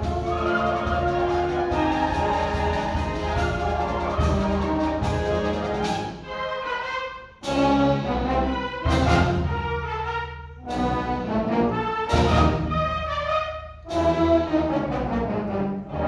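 High school symphonic concert band playing, with brass to the fore: sustained full chords for the first six seconds, then loud phrases cut off sharply with short breaks between them.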